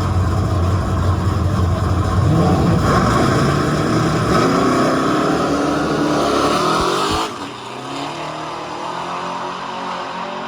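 Car engine revving up, its pitch rising over a few seconds, then dropping away suddenly about seven seconds in, leaving a quieter running sound.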